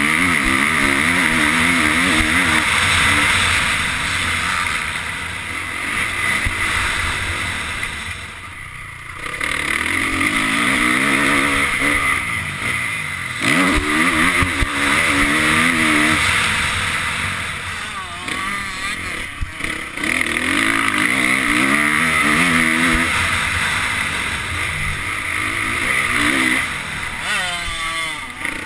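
Honda CRF450 motocross bike's single-cylinder four-stroke engine on track, heard from the rider's helmet camera, revving hard and rising and falling in pitch through the gears. The throttle is shut three times, about 8, 18 and 27 seconds in, as the bike slows for corners.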